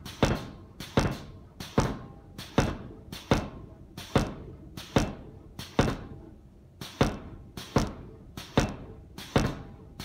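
Homemade pneumatic forging power hammer, its 69 kg ram striking a red-hot steel bar on a railway-line die. Twelve single blows, about one every 0.8 seconds, with a short pause about six seconds in; each blow is a sharp thud that rings briefly.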